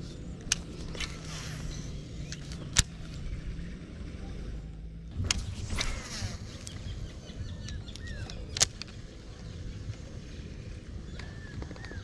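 Handling and casting a baitcasting rod and reel, giving several sharp clicks, over a low steady rumble. A few short chirps come in the second half.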